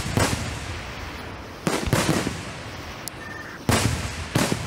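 Aerial fireworks shells bursting in quick succession: about five sharp booms at irregular intervals, each trailing off over a fraction of a second.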